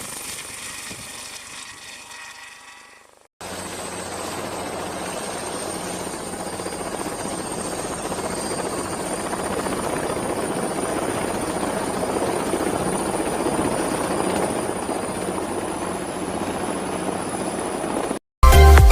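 Helicopter running: a steady rush with a thin, high turbine whine over it, slowly growing louder. It starts abruptly about three seconds in, after a fainter sound fades out, and stops suddenly just before the end.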